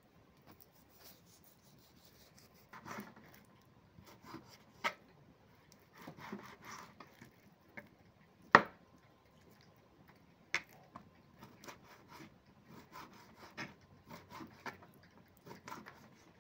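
Kitchen knife cutting raw pork loin on a plastic cutting board: soft scraping strokes through the meat and scattered taps of the blade on the board. The loudest is one sharp knock a little past halfway.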